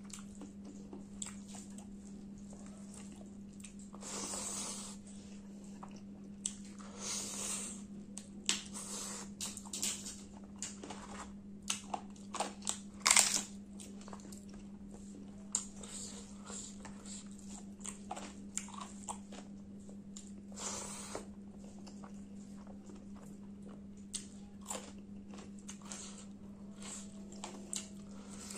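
Close-up eating sounds: crisp papad crunching between the teeth and chewing, in a string of sharp crackles with the loudest crunch about halfway through. A steady low hum runs underneath.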